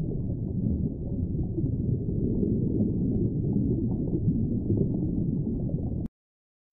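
A deep, dense rumble with no distinct tone, steady in level, that cuts off abruptly about six seconds in.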